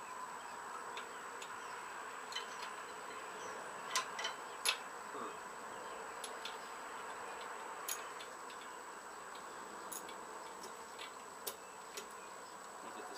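Scattered light metallic clicks of a wrench working a spark plug into the engine, about seven irregular ticks with two or three close together about four seconds in, over a faint steady background hum.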